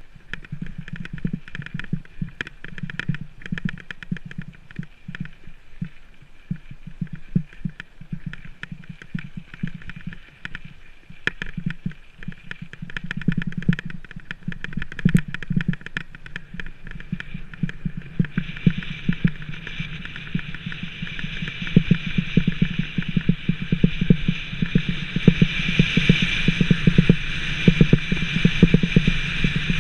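Rockrider 520 mountain bike rattling and clattering over a rough gravel and dirt track at speed, as a dense run of irregular knocks over a low rumble. About 18 seconds in, a steady hiss joins and grows louder.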